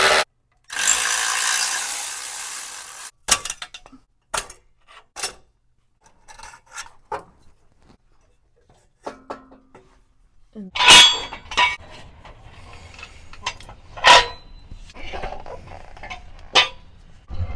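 A ratchet wrench running for about three seconds as the 13 mm bolts of the exhaust mount bracket are backed out, then scattered metal clinks and a few sharper knocks of tools and exhaust parts being handled.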